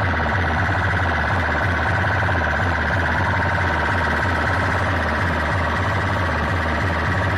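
Loud DJ sound-box music blaring from horn loudspeakers: rapid pulsing heavy bass under a steady, siren-like synth tone.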